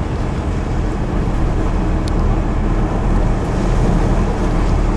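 Blizzard wind buffeting the microphone: a loud, steady rumbling rush.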